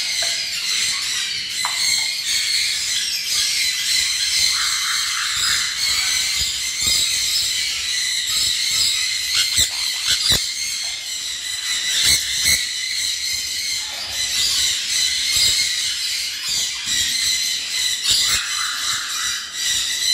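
Dense chorus of many caged pet birds, parrots among them, chirping and squawking at once, high-pitched and steady, with a few sharp clicks around the middle.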